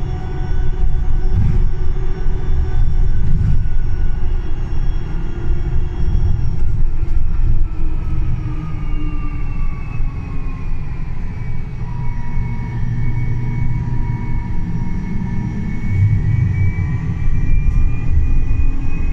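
Solaris Urbino 12 Hydrogen fuel-cell electric bus running, with a steady low rumble and several whining tones over it. About seven seconds in, one whine falls in pitch while a higher whine rises and holds.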